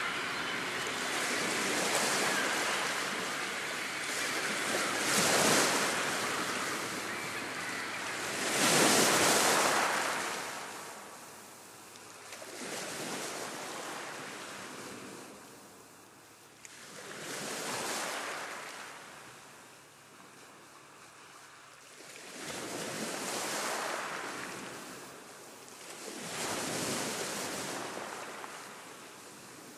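Sea waves washing in and drawing back, rising and falling in about seven swells of noise, the loudest about nine seconds in.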